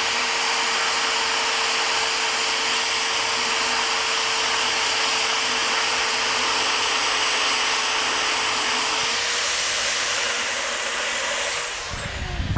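A steady rushing hiss with a constant hum, like a blower or small electric motor running. About two-thirds of the way through the pitch steps up slightly, and near the end the sound winds down and stops.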